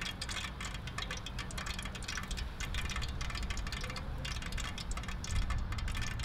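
Oil with a melting pat of ghee sizzling faintly in a wok on a portable gas burner, a steady fine crackle over a low rumble.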